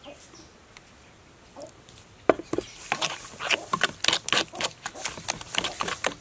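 Metal spoon stirring a wet raw ground-pork and egg mixture in a metal bowl: after a quiet start, quick irregular clinks and scrapes of the spoon against the bowl begin about two seconds in and continue.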